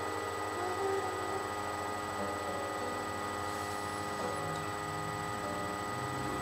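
A steady electrical hum with thin high whining tones, over faint music with short held notes from the song playing back.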